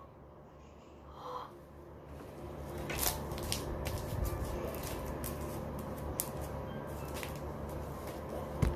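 Crunchy slime full of small beads being squeezed and kneaded by hand, with soft crackling and scattered clicks starting about three seconds in.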